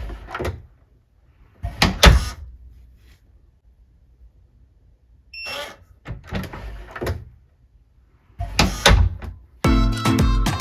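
Electronic smart door lock knob working: a short beep from the lock, then several clunks of the knob, latch and door opening and closing, the loudest about two seconds in. Music starts near the end.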